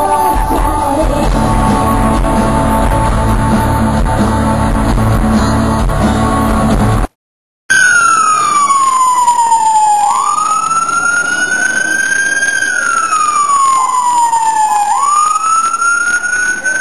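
Loud music for about the first seven seconds. Then, after a brief cut, an emergency vehicle siren wails, its pitch falling slowly and rising again in long cycles of about five seconds.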